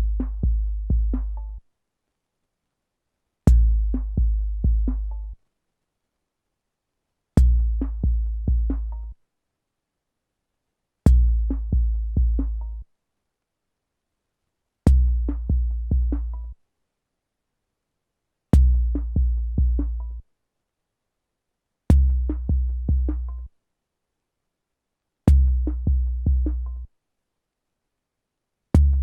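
12-bit SP-1200 sampler playing back a short sampled drum phrase: four quick, deep, bass-heavy hits, repeated about every four seconds with silence between. The low end sits lower in the later repeats.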